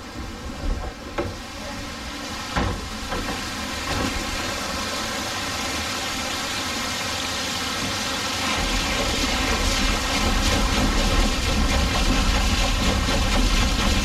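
Water rushing down a wooden flume onto a wooden mill waterwheel, the flow building as the mill is started. It grows steadily louder and takes on a deep rumble from about eight seconds in. There are a few sharp wooden knocks in the first three seconds.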